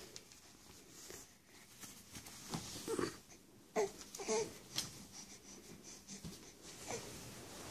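A baby's short breathy grunts and babbling sounds while crawling, a handful of brief vocal sounds clustered a few seconds in, otherwise quiet.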